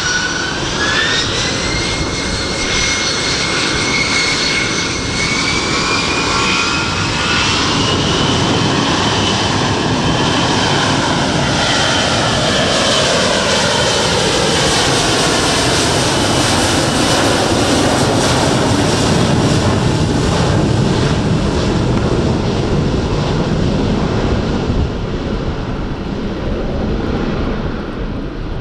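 Airbus A321-211's CFM56 turbofan engines spooling up to takeoff thrust: the fan whine steps up in pitch about a second in, climbs again until roughly nine seconds in, then holds steady under the loud roar of the takeoff roll. A falling tone around the middle marks the jet passing by, and the sound eases slightly near the end.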